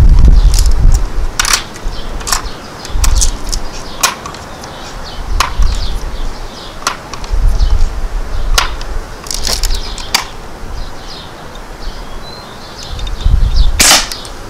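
Umarex NXG multi-pump air rifle shooting BBs: a string of sharp clicks and snaps from the rifle being worked between shots, with one loud shot about 14 seconds in, over a low rumble.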